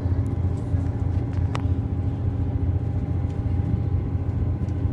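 Steady low rumble of a passenger train running along the line, heard from inside the carriage, with a single sharp click about one and a half seconds in.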